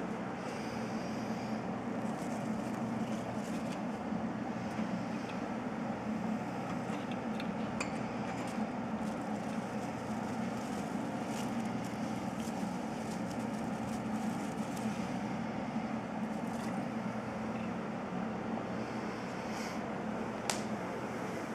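Steady low mechanical hum with scattered faint clicks and taps, and one sharper click near the end.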